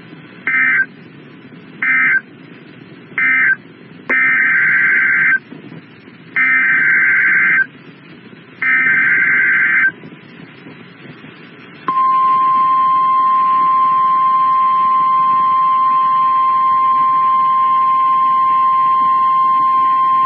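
NOAA Weather Radio alert tones. First three short squawks of SAME data, the end-of-message code closing the flash flood warning. Then three longer squawking SAME header bursts announcing a new tornado warning, and after a short pause the steady single-pitch 1050 Hz warning alarm tone, held for about nine seconds.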